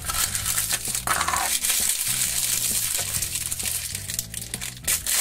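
Foil blind-bag packet crinkling and crackling as it is torn open by hand, with soft background music underneath.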